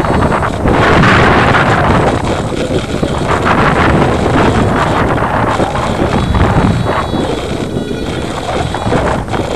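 Wind rushing over the microphone of a camera riding on an electric RC foam airplane in flight, a loud steady rush that swells about a second in.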